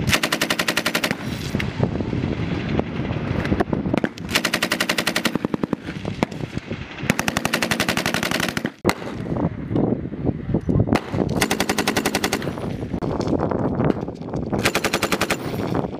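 M240B 7.62 mm machine guns firing short bursts: five loud bursts of rapid shots, each about a second long, roughly three seconds apart, with quieter gunfire from other guns in the gaps.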